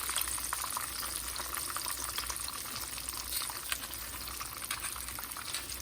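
Breaded green tomato slices frying in hot oil (grease): a steady sizzle with many scattered pops and crackles.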